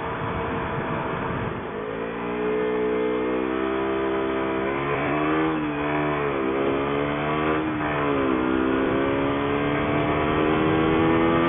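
Motorcycle engine accelerating under way: its pitch climbs, then drops briefly several times as gears change and climbs again, over a steady rush of noise.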